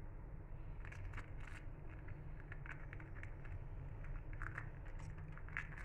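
Faint crisp clicks and rustles of a kitchen knife slitting fresh green chillies and scraping out their seeds, over a steady low hum.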